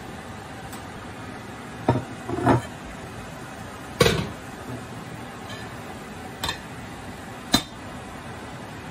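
Kitchen clatter of cookware: a glass pan lid lifted off a frying pan and set down, then a plate laid over the pan, giving five short clinks and knocks, the loudest about four seconds in, over a steady low hiss.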